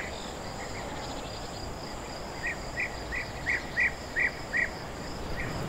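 Countryside ambience: insects droning steadily in two high tones, with a bird giving a quick run of about seven short chirps, about three a second, in the middle.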